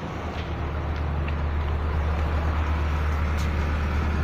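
A motor vehicle engine running steadily with a low hum that grows a little louder about a second in.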